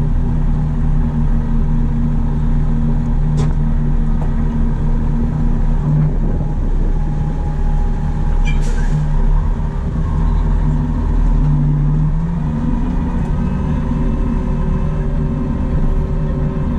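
Tow truck's engine running steadily as the truck rolls slowly along the road, with a deep steady hum and rumble. Two brief sharp clicks cut through, about three and a half and eight and a half seconds in.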